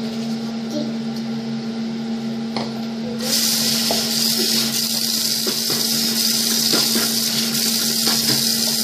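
Water running steadily from a bathroom tap into the sink, starting abruptly about three seconds in, over a steady low hum.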